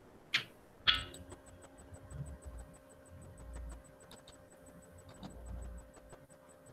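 Two sharp clicks about half a second apart, the second louder, then faint, fast, regular ticking over a low hum.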